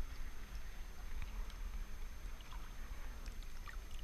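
Shallow sea water lapping and sloshing around a camera held half in the water, with a steady low rumble and scattered small splashes and clicks.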